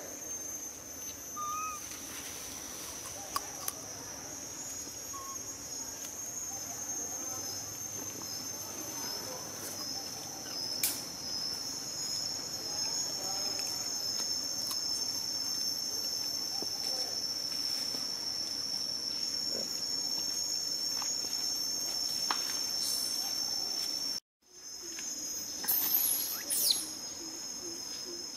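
Steady chorus of insects such as cicadas or crickets, a continuous high-pitched drone. It breaks off for an instant about three-quarters of the way through, and a few short, louder sharp sounds follow near the end.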